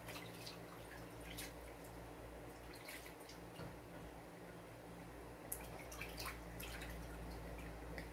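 Water dripping and splashing in a plastic basin as a bedridden patient's foot is washed by hand, in short, irregular splashes over a steady low hum.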